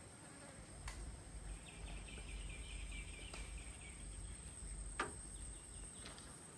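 Faint outdoor ambience: an insect's rapid chirping trill runs for about two and a half seconds over a steady thin high whine and a low rumble. A few soft clicks come through, the sharpest about five seconds in.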